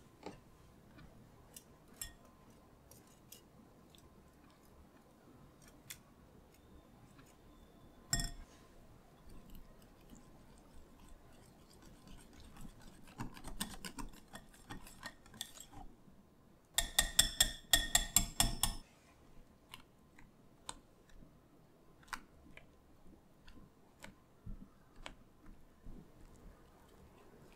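A wire balloon whisk and a silicone spatula mixing a thick cream in a glass bowl: soft scrapes and light ticks throughout, with one knock about eight seconds in. About two-thirds of the way through comes a quick run of ringing clinks, about six a second for two seconds, as the whisk wires strike the glass.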